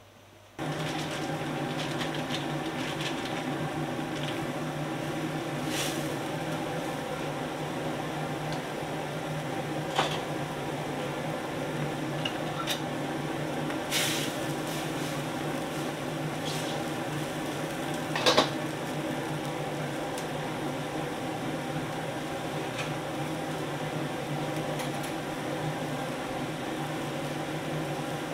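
Steady hum and rush of a commercial kitchen's wok-range gas burner and extraction fan, with a few sharp clinks of a metal ladle against the wok, the loudest about 18 seconds in.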